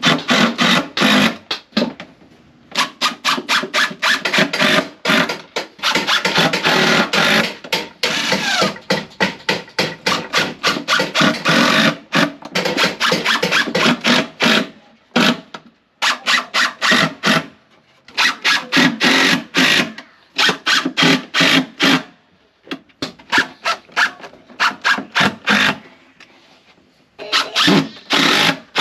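Cordless DeWalt drill driving screws into plywood in repeated short bursts of rapid clicking, with brief pauses between screws.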